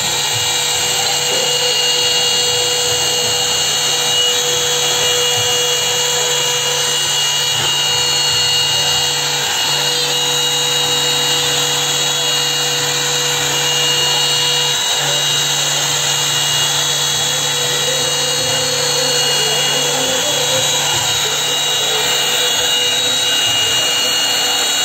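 CNC router cutting a profile through a wooden sheet: the trim-router spindle runs at high speed with a steady high whine, and the bit's cutting noise runs under it.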